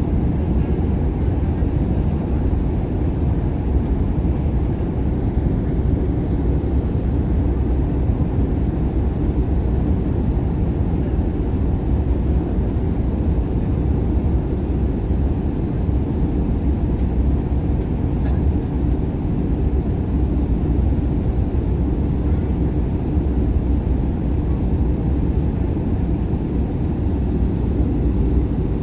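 Airliner cabin noise in flight: the engines and rushing air make a steady low noise that hardly changes.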